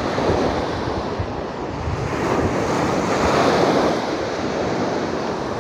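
Sea surf washing onto a sandy beach, with wind buffeting the microphone; the surf swells louder around three seconds in, then eases.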